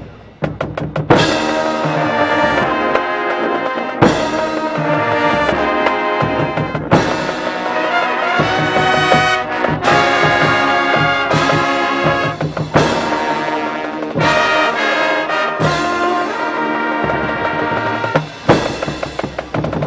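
Marching band brass (trumpets and trombones) playing loud, sustained full chords with percussion, with quick runs of drum hits about a second in and near the end.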